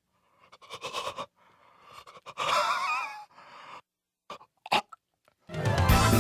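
A cartoon baby's voice making short gasps and breathy, strained sounds, with a wavering, wobbly cry about two and a half seconds in. Music comes in suddenly near the end.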